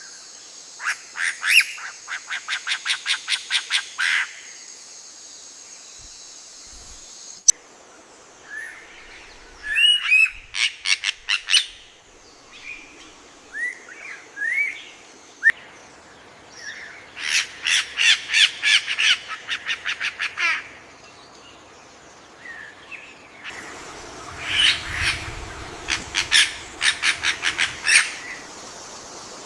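Myna calling in four bouts of fast repeated notes, with scattered short rising whistled notes between the bouts.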